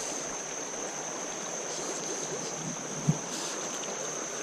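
Creek water rushing steadily over rapids, with a steady high thin tone above it and a brief low knock about three seconds in.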